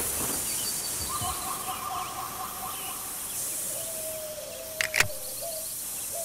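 Outdoor forest ambience with birds calling over a steady hiss, and a sharp click about five seconds in.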